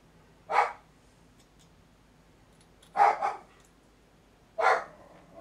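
A dog barking: a single bark, a quick double bark about three seconds in, and another single bark near the end.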